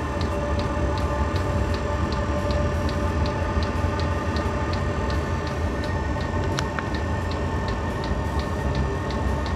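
Chinese diesel air heater running on a bench: the fuel dosing pump ticks evenly, nearly three times a second, over the steady whir of the heater's fan as it ramps up toward full power and the flame lights. A single sharper click sounds about two-thirds of the way through.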